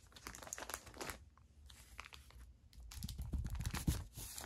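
Crinkly plastic comic book bag rustling and crackling as a comic is worked out of it, louder and busier about three seconds in.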